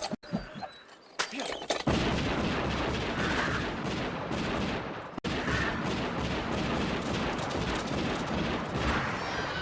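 Movie sound effects of repeated gunfire, shots coming close on one another from about two seconds in to near the end, after a single sharp shot about a second in.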